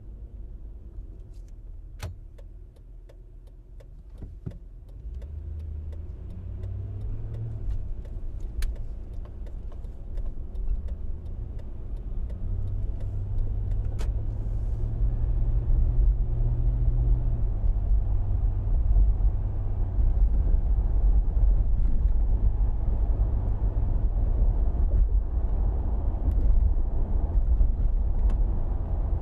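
SUV driving on a local street: low engine and road rumble that builds up as it gathers speed, the engine note rising and easing off, with a few sharp clicks in the first half.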